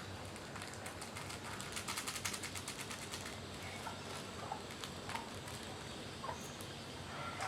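Steady quiet outdoor background with a quick run of sharp clicks about two seconds in, then a few scattered clicks and short faint chirps.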